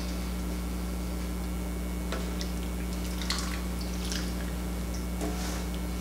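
Creamy soup being ladled from a stockpot into a bowl: a few soft splashes and drips with light taps of the ladle, over a steady low hum.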